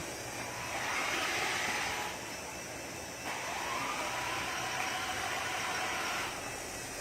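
Handmade large-scale RC truck running in two short runs, the first about a second in and the second from about three seconds in: a faint motor whine that rises in pitch as the second run starts, over a hissing rush of tyre and drive noise.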